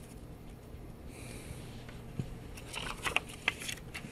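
Magic: The Gathering cards and a paper sticky note being handled: faint rustling, with a short cluster of light clicks and rustles about three seconds in, over a low steady hum.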